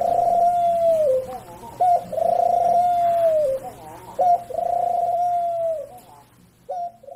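A white domestic pigeon cooing: four long drawn-out coos about every two seconds, each dropping in pitch at its end.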